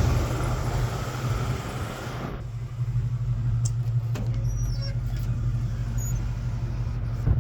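1985 Chevrolet Monte Carlo engine idling steadily with a low hum, under a hiss that drops away after about two seconds; a few light clicks later on.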